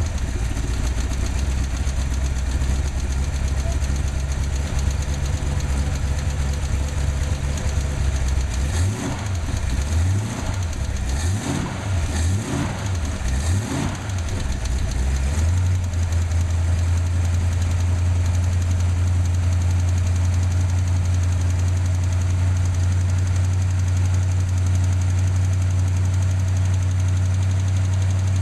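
Ford small-block V8 idling with a ticking whose cause the owner doesn't know, blipped up and down several times in the middle before settling back to a steady idle.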